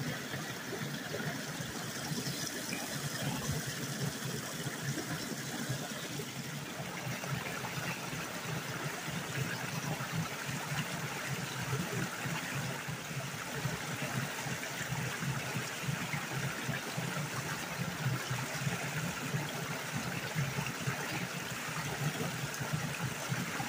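Small rocky creek pouring steadily over a low cascade between rocks, a continuous rush of running water.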